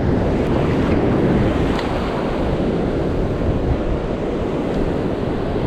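Ocean surf breaking and washing up the sand, with wind blowing across the microphone: a steady, unbroken rush of noise.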